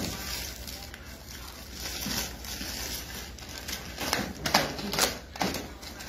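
Knife cutting open a burlap sack and the black plastic bag inside it, with plastic crinkling and rustling and a few sharper scrapes about two-thirds of the way through.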